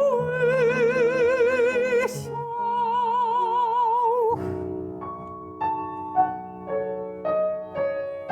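A soprano sings long held notes with a wide vibrato over piano accompaniment; about four seconds in the voice stops and the piano plays on alone, a series of separate notes and chords.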